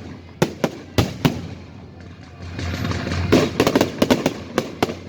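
Fireworks going off: a few sharp cracks in the first second and a half, then a rapid cluster of cracks and pops from about three to five seconds in, over background music.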